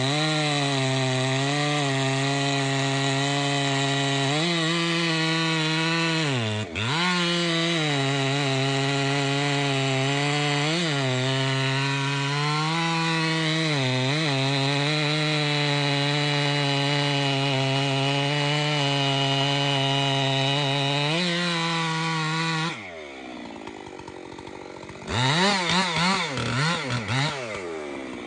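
Two-stroke chainsaw running at full throttle as it cuts into a large tulip poplar trunk, the engine pitch sagging and recovering as the chain loads in the wood, with one brief sharp dip about a quarter of the way in. Near the end it drops back to idle, then is revved several times in quick blips.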